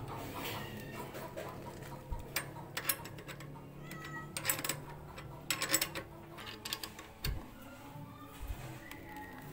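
Hand wrench working a bicycle wheel's axle nut: irregular sharp metallic clicks and taps, some in quick clusters, as the nut is turned and the wrench is repositioned.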